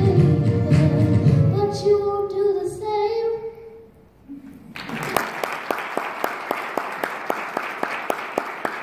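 A young girl sings the last phrase of a song into a microphone, ending on a long held note about three and a half seconds in. After a short lull, an audience applauds.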